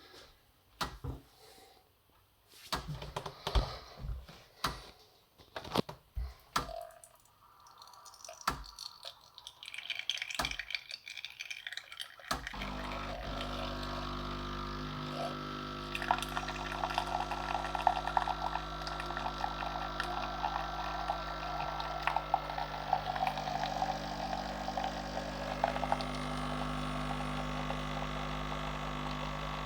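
Clicks and knocks as the machine is handled, then about twelve seconds in the Bosch Tassimo coffee machine's pump starts and runs steadily, with liquid pouring, as it dispenses the milk pod for a latte macchiato.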